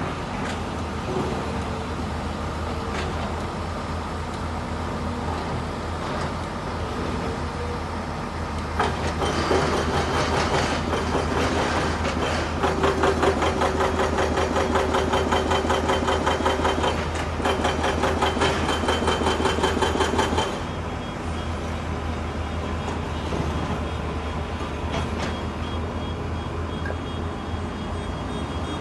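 Sany 220 crawler excavator's diesel engine running steadily. About nine seconds in, a louder stretch of rapid, rhythmic metallic clatter with a steady whine sets in under load, and it cuts off suddenly about twenty seconds in.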